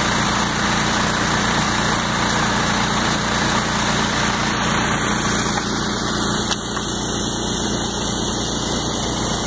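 Small gasoline engines on floating suction gold dredges running steadily, with creek water rushing underneath.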